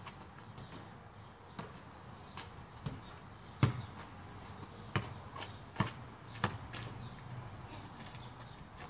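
A basketball being bounced and shot at a hoop: a scatter of separate thuds at uneven spacing, the loudest about three and a half seconds in.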